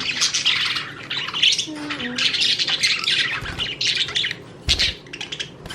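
Pet birds squawking and chirping in rapid, harsh calls, thinning out near the end.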